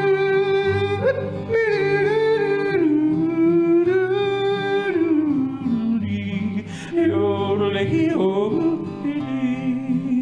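A man yodeling a wordless refrain, holding long notes that break suddenly up and down in pitch, over strummed acoustic guitar chords.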